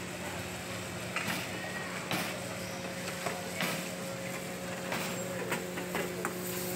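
Metal ladle knocking and scraping against steel karahi woks as the cook stirs the chicken karahi, several sharp clinks spaced a second or two apart, over a steady mechanical hum.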